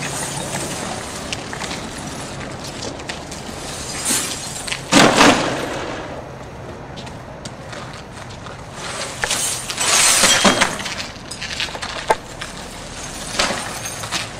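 Shattered car windshield glass crackling and crunching as the broken sheets are lifted, bent and dragged over the ground. It comes in two louder bursts, about five and ten seconds in, and a smaller one near the end, with scattered clinks of glass between them.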